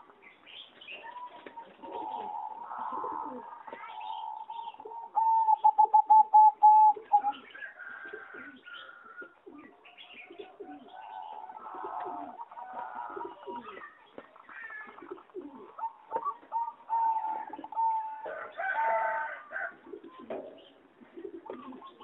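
Zebra doves cooing: strings of staccato, trilling coos around one pitch. The loudest is a quick run of pulses about five seconds in, and more cooing phrases follow in the second half.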